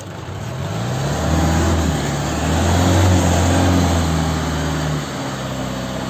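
Car engine revved up from idle, held at higher revs for a few seconds, then dropping back toward idle about five seconds in, heard close to its exhaust pipe.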